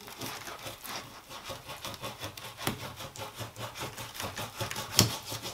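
Kitchen knife sawing back and forth through a partly frozen fish on a plastic cutting board, a steady run of short scraping strokes, with one sharper knock near the end. The fish is still hard, frozen almost to a block, so the blade has to saw rather than slice.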